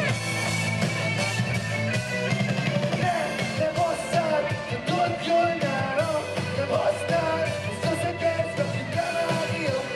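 A rock song with singing over a band and a steady beat.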